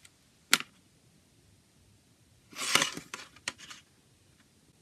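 Plastic CD jewel case handled: a single sharp click about half a second in, then, around the middle, a short scrape followed by a few quick clicks and taps as the case is turned over and laid flat on a table.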